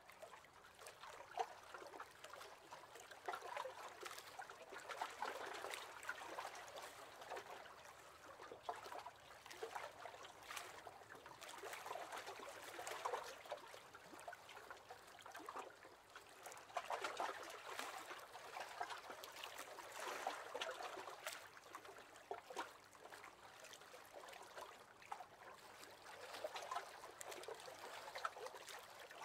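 Small waves lapping against the hull of a wooden rowing boat: faint, soft splashes and gurgles that come and go in uneven swells.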